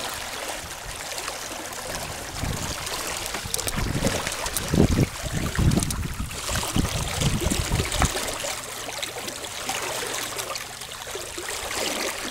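Water rushing and splashing along the hull of a MacGregor 26 sailboat under way, a steady hiss, with bursts of low rumble between about two and eight seconds in.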